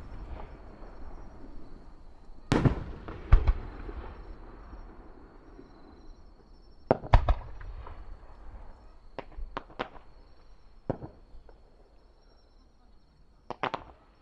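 Fireworks shells bursting at irregular intervals, each bang trailing off in a rumbling echo. Loud bangs come a couple of seconds in and again about seven seconds in, with lighter cracks around ten seconds and a quick pair near the end.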